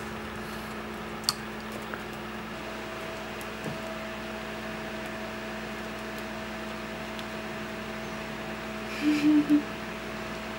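Small-room tone with a steady electrical hum and one sharp click about a second in. Near the end come three short, louder sounds in quick succession.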